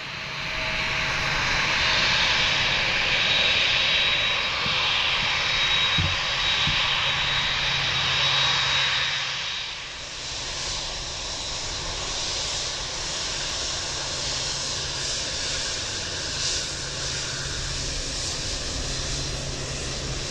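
Jet engines of a Boeing 787-9 Dreamliner running at taxi power: a steady rushing hiss with a thin high whine. About ten seconds in it drops a little to a lower, steadier rush.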